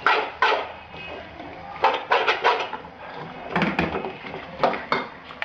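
Steel spoon knocking and scraping against a steel pan as noodles are stirred and tossed. The knocks are irregular: two near the start, a quick run of four about two seconds in, and a few more near the end.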